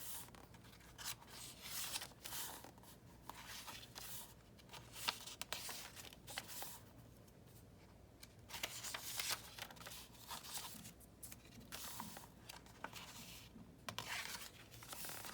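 Paper rustling and sliding in irregular bursts as the pages and tucked-in papers of a handmade junk journal are turned and handled.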